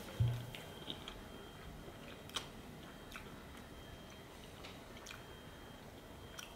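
Quiet eating at a table: chewing, with a few faint clicks scattered through. A dull thump just after the start is the loudest sound.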